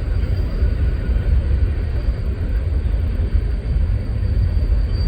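Freight train cars rolling past on the rails, a steady low rumble.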